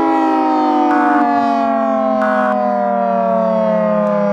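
Civil defense siren winding down: several tones sliding slowly and steadily lower in pitch together. Twice, a short buzzy data burst cuts across it; these are EAS end-of-message tones.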